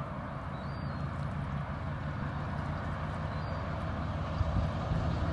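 Distant LNER A4 Pacific steam locomotive, No. 60009 Union of South Africa, approaching at speed: a low steady rumble that slowly grows louder.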